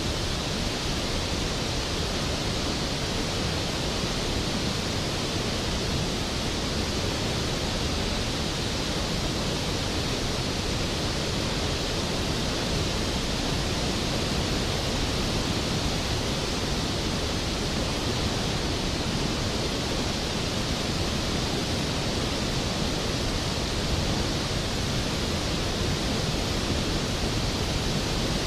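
Skógafoss waterfall: a large fall of water crashing down steadily, heard as an even roar of white noise with no breaks or changes.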